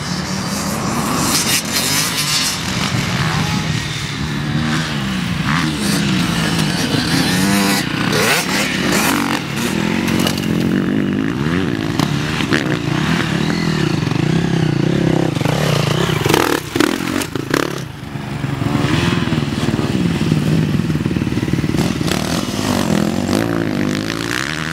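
Dirt bike engine revving up and falling off again and again as the bike is ridden hard over jumps and bends. A few sharp knocks are scattered through it.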